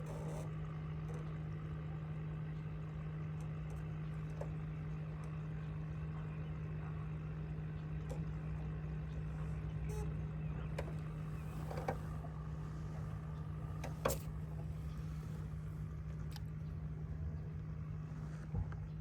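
A boat motor running with a steady low hum, with a few light knocks about two thirds of the way through.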